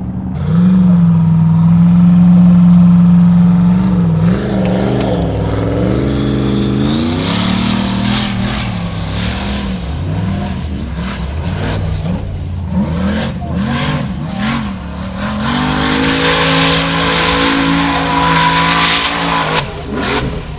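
Formula Offroad buggy's engine held at high revs, then revving up and down in quick swings as the buggy claws up a steep dirt cliff, its tyres spinning and throwing dirt. A rising whine comes in about a third of the way through.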